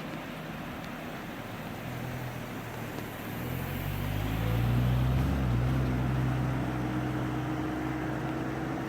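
An engine running with a low, steady hum. It grows louder from about three seconds in, peaks a couple of seconds later, then holds steady.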